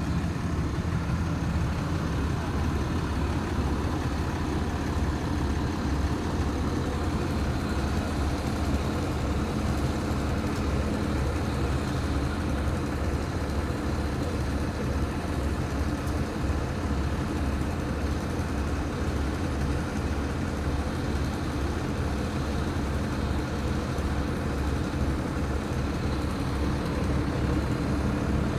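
A large engine running steadily at one constant speed, with an even low throb.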